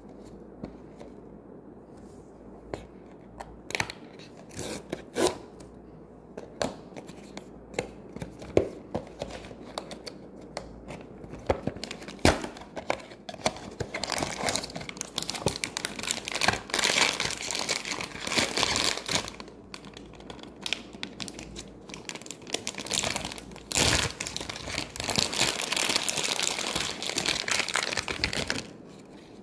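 A small cardboard blind box being handled and torn open. First come scattered sharp taps and clicks, then long stretches of tearing paperboard and crinkling plastic as the figure in its clear plastic bag is pulled out.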